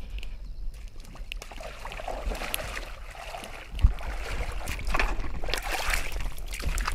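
Water sloshing and splashing at the edge of a river, with scattered knocks and clicks and one sharp thump a little before four seconds in.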